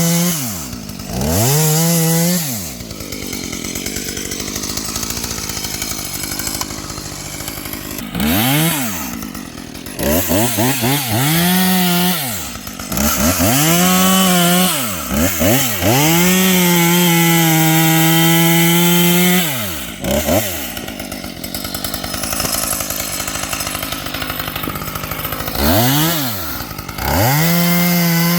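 Husqvarna T540XP top-handle chainsaw's two-stroke engine revved over and over: the pitch rises sharply to a high, steady full-throttle whine, is held for one to three seconds, and drops back to idle, about ten times, with the longest run in the middle.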